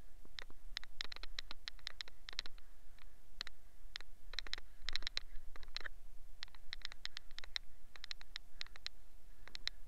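A foam-covered steel wheel rim and tyre being scrubbed by hand, giving irregular scratchy rubbing and clicking strokes over a faint steady hum.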